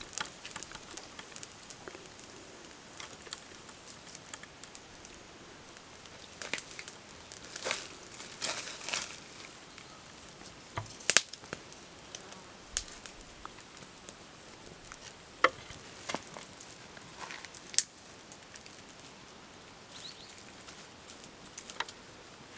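Sticks and green bamboo tubes knocking and rustling as they are set over a small wood fire, with scattered single sharp cracks.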